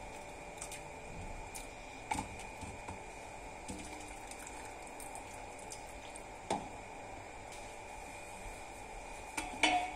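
Faint water sloshing in a steel bowl of ice water holding blanched spinach, with a few light clinks.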